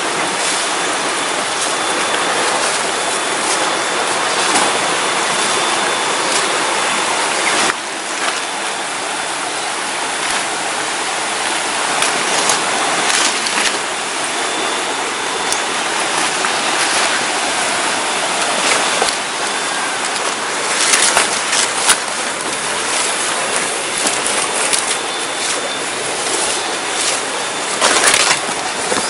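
A river rushing steadily, a constant loud hiss of moving water. In the second half, leaves and undergrowth rustle and crackle in short bursts as people push through the vegetation on foot.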